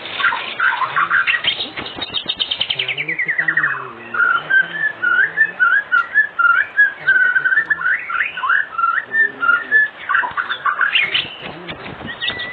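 White-rumped shama (murai batu) singing a long, varied song: rapid trills, a falling trill about three seconds in, then a run of short whistled notes, and fast trills again near the end.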